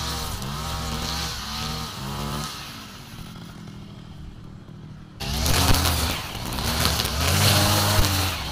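Brush cutter engine revving up and easing off in surges as it cuts grass, dropping to a quieter low idle about two and a half seconds in. At about five seconds a sudden jump brings a louder brush cutter, again revving in surges.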